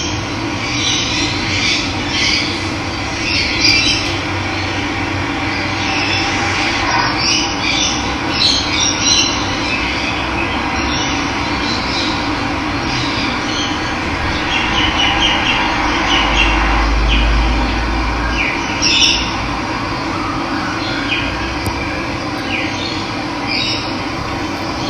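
Steady rush of running water with birds chirping and calling over it, many short calls scattered throughout.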